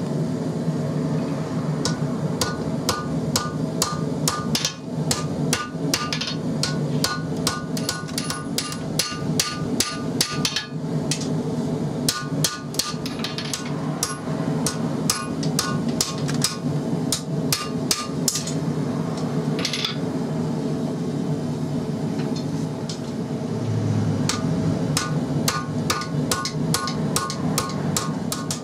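Hand hammer striking red-hot XC75 carbon steel on an anvil, forging a knife blade: runs of quick blows with short pauses, each blow followed by a brief metallic ring. A steady drone from the forge runs underneath.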